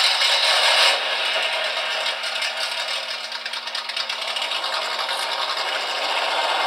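Simulated V8 engine sound from the PRC QX-4 1/18 crawler's built-in sound unit, played through its small speaker: a buzzy, rattly engine sound, a little louder in the first second, then running steadily.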